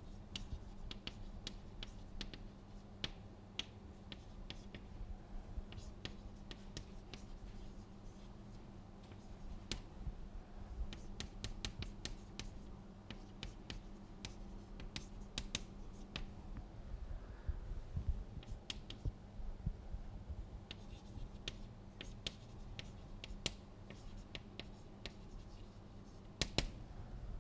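Chalk on a blackboard during writing: many short taps and scratches, irregular and close together, over a low steady hum.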